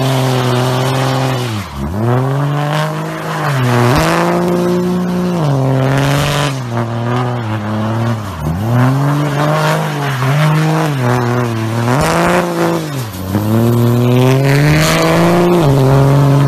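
Lifted pickup truck doing a burnout: the engine is held at high revs, dipping and climbing back again about every two seconds, over the hiss of the spinning rear tires.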